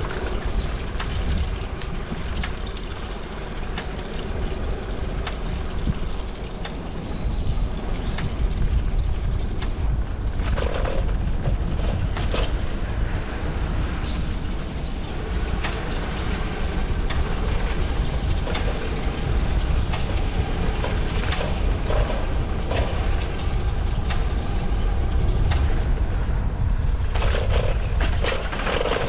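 Steady wind buffeting the microphone over the deep rolling rumble of a bicycle ride along a path, with occasional clicks and rattles.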